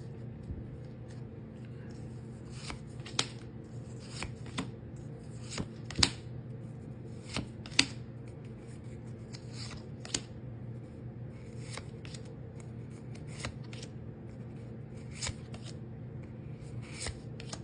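Pokémon trading cards being flicked through one at a time: irregular sharp snaps of card stock every second or two, over a steady low electrical hum.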